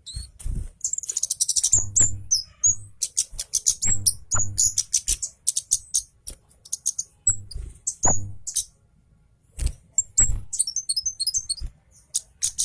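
Kemade cabe Jawa flowerpecker singing hard: rapid, sharp high-pitched chirps and quick trills in dense runs, broken by short pauses about six and nine seconds in. Low thumps come with some of the notes. The bird is in an agitated, full-voiced state.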